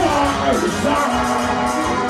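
Live dancehall music played loud over a concert PA, with a male vocalist singing into the microphone over the backing track.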